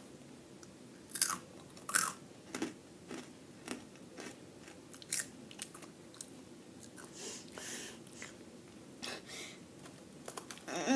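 Flamin' Hot Cheetos being bitten and chewed close to the microphone: a run of sharp, crackling crunches, loudest about one to two seconds in, thinning out to softer, sparser chewing.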